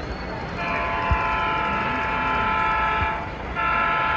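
Multi-chime diesel horn from a model locomotive's sound system: one long blast of about two and a half seconds, then a second blast starting near the end.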